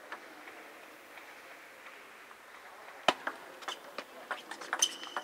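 Table tennis rally: the ball clicking off the rackets and the table in a quick run of sharp ticks, starting with the serve about three seconds in.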